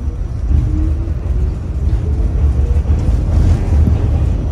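R68 New York City subway car running out of a station, heard from inside the car: a steady low rumble from the wheels and running gear, with a faint rising whine as the train gathers speed.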